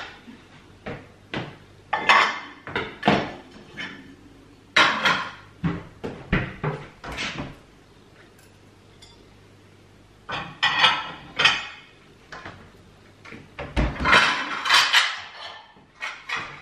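Ceramic plates and dishes clattering and clinking in bursts as they are stacked into kitchen drawers and cupboards. There is a quiet gap in the middle and a heavier knock toward the end.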